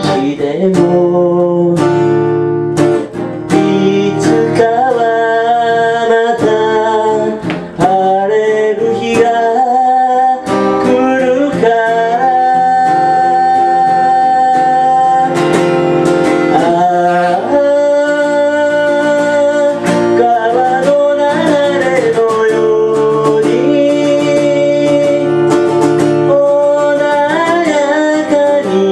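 A man singing a slow ballad, accompanying himself on a strummed acoustic guitar.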